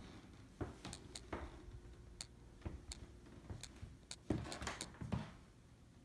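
Irregular light clicks and soft thumps of movement in a small room, as from footsteps and a handheld phone being carried through a doorway, with a louder cluster of them about four to five seconds in.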